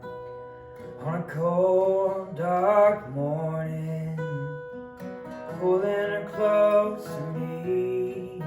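Acoustic guitar music: a song's instrumental introduction. Sustained chords ring under a melody of sliding notes that comes in two louder phrases, the first about a second in and the second past the middle.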